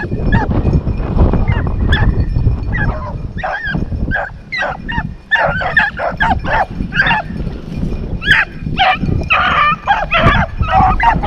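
A pack of rabbit hounds barking on a rabbit's trail, short repeated barks that come thicker and overlap in the last few seconds, over a steady low noise.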